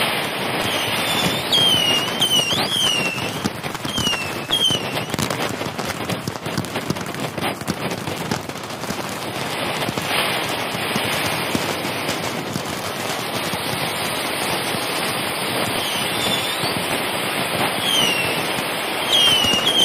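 Fireworks display crackling and popping continuously, with scattered sharp bangs and a few short, high falling whistles near the start and again near the end.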